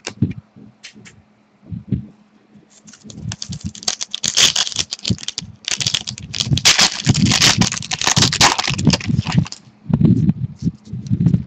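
Trading cards being handled: after a few scattered clicks, a dense run of quick rustling and clicking as cards are slid and flipped through, easing off with softer handling knocks near the end.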